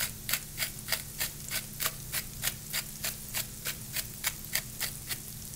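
Salt being dispensed with a steady run of short dry clicks, about three a second.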